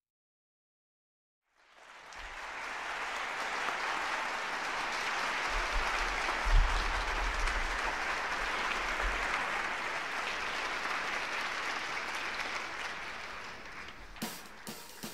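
Crowd applauding and cheering on a live music recording, fading in after a second or two of silence; drum hits come in near the end.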